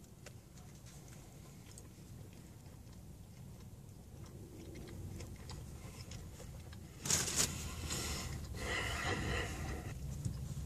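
Quiet chewing of a mouthful of sandwich with faint mouth clicks. About seven seconds in come two short bouts of loud paper crinkling, the sub's wrapper being handled as the sandwich is put down, and a low steady hum follows near the end.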